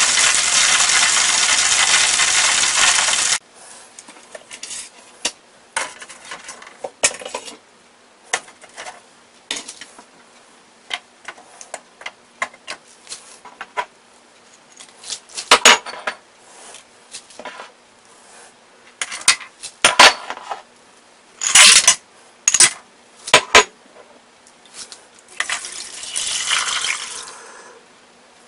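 Chicken quarter deep-frying in hot oil in a stainless steel pot: a loud, steady sizzle that cuts off suddenly about three seconds in. Then come scattered clinks and knocks of whole spices and utensils going into the pot. Near the end there is a couple of seconds of water pouring into it.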